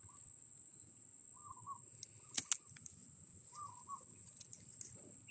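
A bird calls faintly outdoors, a short call repeated about every two seconds, over a steady high whine. About two and a half seconds in come two sharp snaps as vegetable stems are picked by hand.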